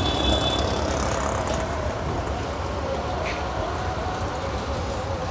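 Road traffic noise: a steady rumble of passing vehicles.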